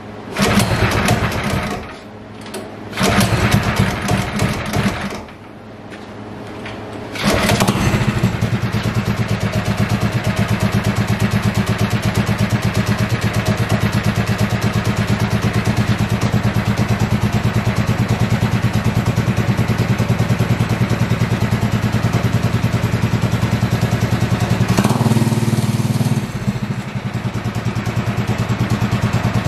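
Predator 212cc Ghost kart racing engine being started: two short bursts, then it catches about seven seconds in and runs steadily with a fast, even beat, briefly louder near the end. At idle it makes a noise that the owner suspects is a clearance or crank issue.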